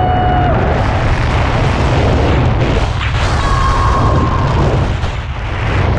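Wind buffeting the pole-mounted camera's microphone as a tandem parachute sweeps in low to land. The woman passenger yells with a long held cry at the start and again a little after halfway.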